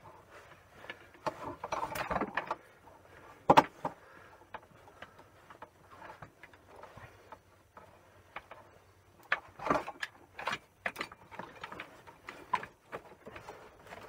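Pliers and thin electrical cable being handled as copper wire cores are pulled out of their plastic sheathing: scattered clicks, knocks and scraping. One sharp knock comes about three and a half seconds in, and a run of clicks comes near ten seconds.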